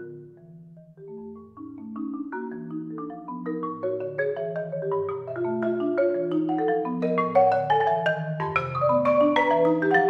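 Solo concert marimba played with four mallets: ringing struck notes in low and middle registers, soft and sparse about a second in, then growing steadily denser and louder in a gradual swell.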